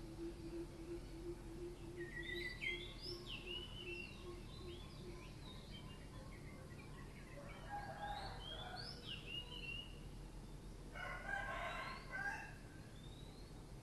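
A rooster crowing twice, once a little past halfway and again near the end, while small birds chirp in short bursts throughout.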